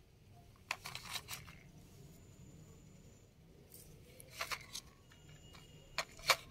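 Light clicks and rustles from something being handled, in three short groups: a cluster about a second in, another about four and a half seconds in, and two sharp clicks near the end.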